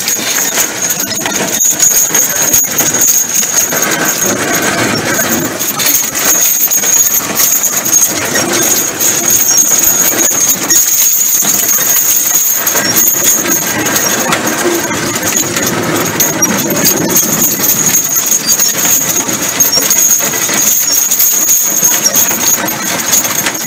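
A two-horse team pulling a sleigh over snow: a steady, loud hiss and scrape of runners and hooves in snow, with many small clicks and knocks from the harness and rig.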